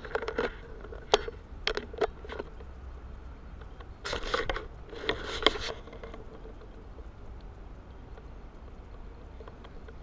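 Handling noise from a camera being gripped and moved: scrapes, taps and rustles in the first couple of seconds and again about four to six seconds in, then only a faint steady background.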